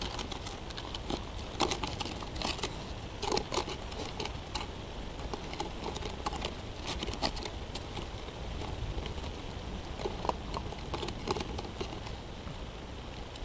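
A lagotto romagnolo puppy rooting with its nose at the ground, making irregular clicking and crackling sounds that come in clusters.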